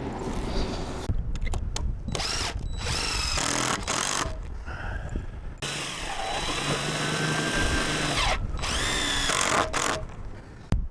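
A power drill-driver running in several short bursts, its motor whine rising and falling in pitch as it spins screws into the wooden bracing of a greenhouse frame. Wind rumbles on the microphone at the start.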